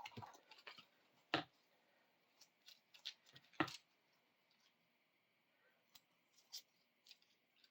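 Small hard parts being handled: scattered light clicks and taps, with two sharper clicks about one and a half and three and a half seconds in, as spacers and beads are picked through.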